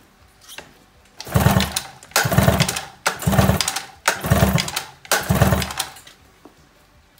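Recoil pull-starter of an 18 hp Tohatsu two-stroke outboard pulled five times, about once a second, spinning the engine over without it firing. The engine is being cranked for a compression test with a gauge fitted, on a cylinder the owner reads as a low 75 PSI.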